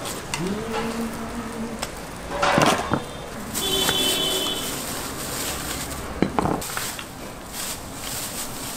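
A kitchen knife chops a pancake against a plastic cutting board, with a sharp strike about two and a half seconds in and another about six seconds in. Plastic bags crinkle as the pancake is bagged. A short rising hum near the start, which then holds steady, lies under it.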